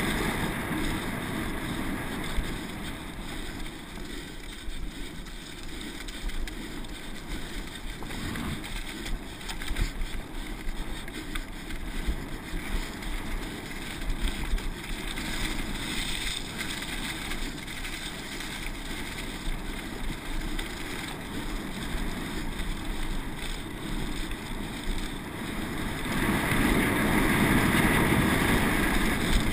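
Wind rushing over an on-board camera's microphone, with mountain bike tyres rolling and rattling over a dirt and leaf-covered trail during a fast downhill descent. The rush swells louder near the end.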